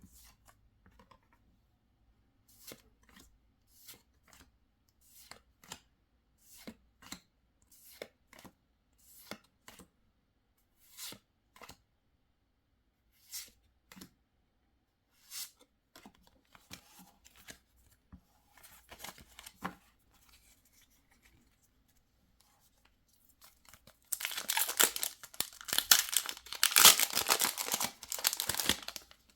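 Pokémon trading cards handled one at a time, a soft flick or slide roughly twice a second, thinning out and pausing. Near the end a foil booster pack wrapper is torn open, a loud crinkly tearing that lasts several seconds.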